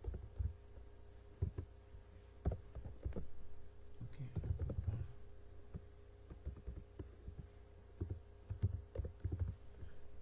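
Computer keyboard typing: irregular key clicks with dull thumps, over a faint steady hum.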